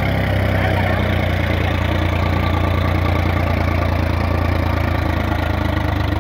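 Sonalika DI 50 tractor's diesel engine running steadily under load, driving a rotavator with a man standing on its rear board.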